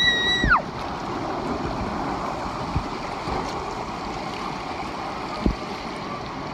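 Shallow river rapids: water rushing and burbling steadily over rocks close by. Two dull low thumps come about three and five and a half seconds in.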